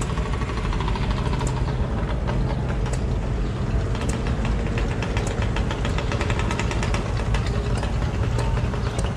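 Engine idling steadily, a low hum with a fast, even ticking over it.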